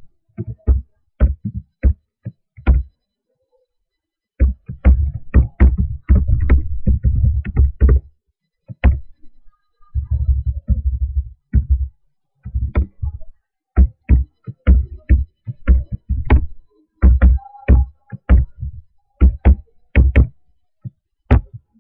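Computer keyboard being typed on in irregular bursts of sharp knocks, with short pauses of a second or so between bursts.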